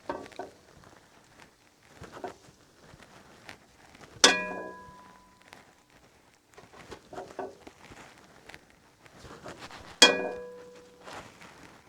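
A metal utensil scraping and clattering in a cooking pan, with two sharp, ringing clanks about four seconds in and again near the end.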